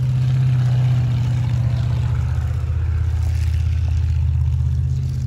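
Pickup truck engine running under load at a steady pitch as the truck spins donuts in the snow.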